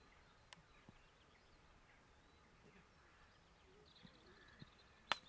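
Faint birdsong over quiet outdoor ambience, then near the end a single sharp crack of a cricket bat striking the ball.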